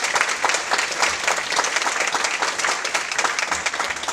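Audience applauding: many people clapping at once, steady and dense, with the clapping thinning out just after the end.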